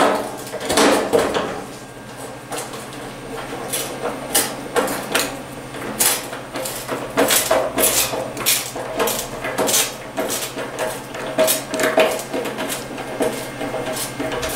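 Hand screwdriver driving a sheet-metal screw into the edge of a sheet-metal shelf: a run of irregular metal clicks, scrapes and small knocks as the screw is turned in and the tool is reset on it.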